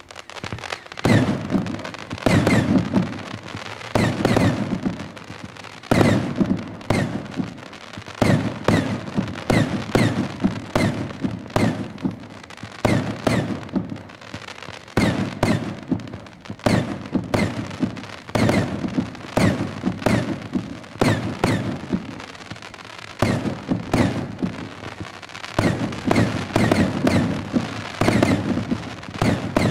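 Firework cake firing in rapid succession: crackling tracers shoot up one after another, each ending in a sharp report, about one or two bangs a second over continuous crackling.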